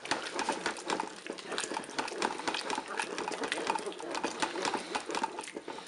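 Wooden spoon stirring chunky vegetables and tomato paste in a Cookeo multicooker's inner bowl: rapid, irregular scraping and knocking against the bowl throughout.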